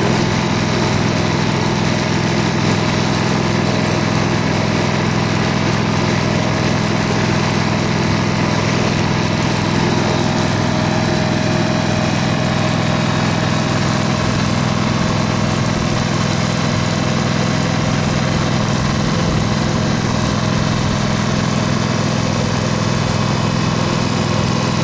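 The engine of a trailer-mounted asphalt crack-sealing machine running steadily at constant speed, with an even drone that does not change.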